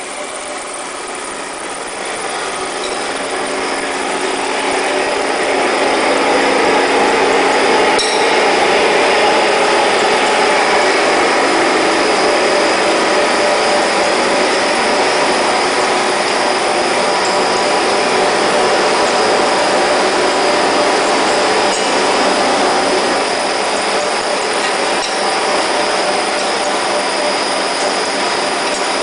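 Fish feed processing line machinery running: a loud, steady industrial din of motors and extrusion equipment with several constant humming tones. It grows louder over the first six seconds, then holds level.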